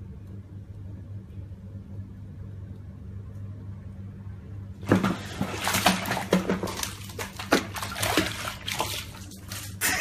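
A cat falls from the bathtub rim into a bubble bath about halfway through and splashes and thrashes loudly in the water. Before that there is only a steady low hum.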